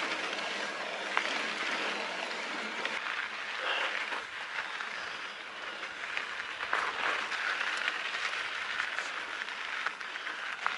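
Mountain bike tyres rolling and crunching over a dry, loose dirt trail while climbing, with scattered small ticks of grit and stones under the wheels.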